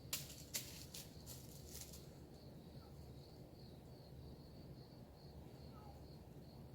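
Faint, steady, high-pitched insect chirping, pulsing about three times a second. In the first two seconds there are a few short scratchy clicks.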